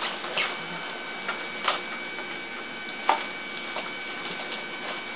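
A handful of light, scattered clicks and taps from packaging and a small RC truck being handled and moved about, over a steady faint high-pitched whine.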